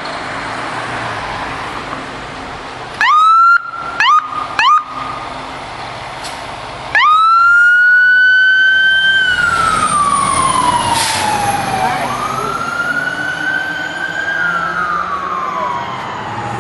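Fire engine siren: three short rising whoops about three seconds in, then a slow wail that climbs and falls twice over vehicle and road noise.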